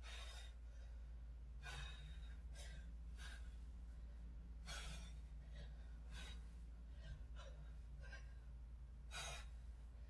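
A woman's hard exhales, about one every second, the effort breaths of Russian twists with a kettlebell, over a faint steady low hum.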